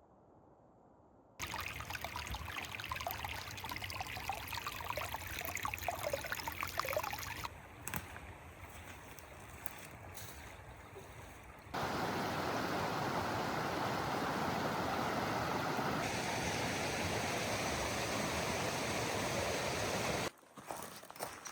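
Steady rushing outdoor noise in several short cut-together clips, changing abruptly at each cut. It is loudest and most even in the second half, with a few faint high chirps in the first clip.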